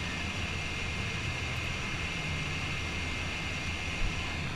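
Steady, unchanging blower hiss over a low hum, with no pauses or strokes.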